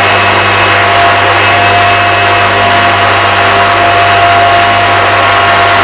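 Rotax 582 two-stroke twin engine and propeller of a Kitfox running steadily at a constant speed, warming up after a cold start in sub-zero temperatures.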